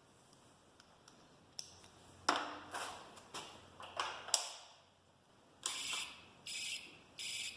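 Turn signal beeper of a Taotao TBR7 250 dirt bike, its small speaker opened up but still wired in, sounding with the turn signal on. Several sharp clicks come first. About two-thirds of the way in, a regular high-pitched beeping starts, about three beeps a couple of seconds apart in quick succession, roughly one every 0.7 s.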